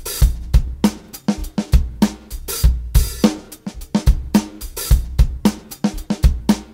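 Drum-heavy music with a steady, fast beat: a drum kit with strong low thumps and bright crisp hits, played for the dance rehearsal.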